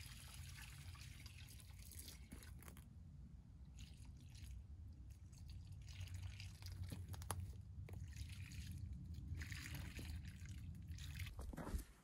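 Water poured from a plastic jug into terracotta pots of soil, soaking them: trickling and splashing in several spells with short pauses between, over a low steady rumble.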